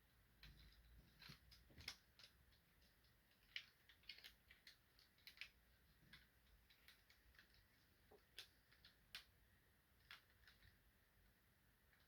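Faint, irregular clicks and taps of plastic Transformers toy parts being handled and pressed together while an upgrade-kit piece is worked into place.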